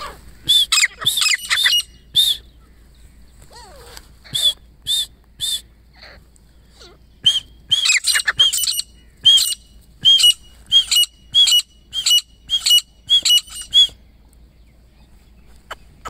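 Grey francolin calling: loud, sharp, high notes repeated in bursts, first a short cluster, then three notes, then a long run of about three notes a second that stops near the end.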